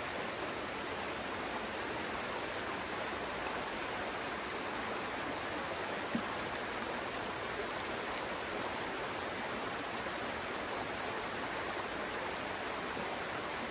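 Stream water rushing steadily.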